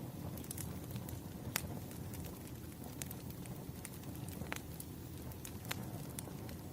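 Firewood burning: a low steady rumble of flames with irregular sharp crackles and pops, a few louder snaps scattered through.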